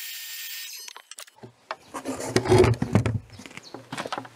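A cordless power tool whines steadily and stops under a second in. Then comes a run of wooden knocks, bumps and rubbing as a solid wooden table frame is handled and carried, loudest in the middle, with lighter clicks and taps near the end.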